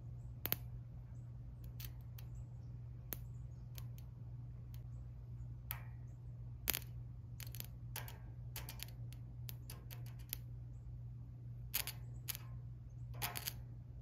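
Bare steel filler rod, held in a jumper cable clamp on a car battery, tapped and scratched on steel angle iron to strike an arc: scattered sharp clicks and crackles in small clusters, over a steady low hum. No arc catches; the battery hookup won't sustain a weld.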